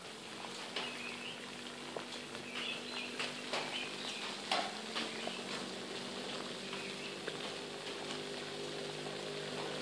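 Fire crackling and popping in a homemade hobo stove cut from an oil canister, with a pot of water boiling hard on top, over a steady low hum. Birds chirp now and then.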